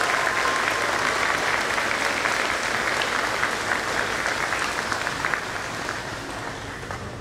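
Audience applauding, a dense clapping that tapers off over the last couple of seconds.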